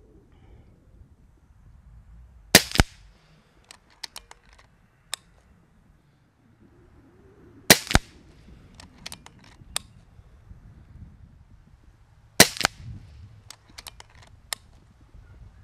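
Kral Puncher Breaker .22 PCP air rifle firing three shots about five seconds apart, each a sharp crack. After each shot come several lighter clicks as the action is worked.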